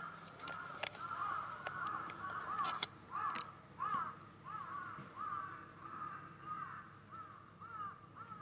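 An animal's short calls, each rising and falling in pitch, repeated about twice a second and growing fainter toward the end.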